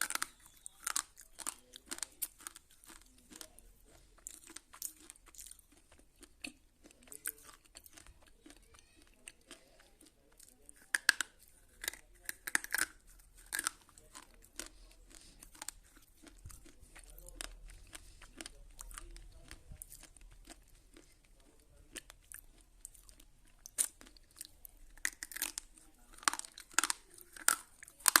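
Close-up crunching of a slate pencil being bitten and chewed: sharp crackling bites in clusters, loudest around ten seconds in and again near the end, with quieter chewing between.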